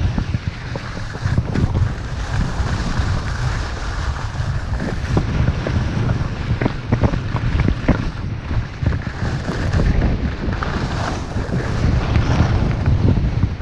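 Wind buffeting the microphone of a camera worn by a skier going downhill, a steady low rumble over the hiss and scrape of skis running on snow.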